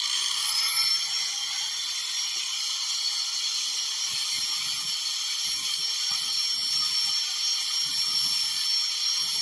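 Grinder fitted with a flap disc running at speed, grinding screw heads down flush on a car's vent window hinge. It is a loud, steady hissing grind, with a high motor whine that rises as the disc spins up at the start and then holds steady.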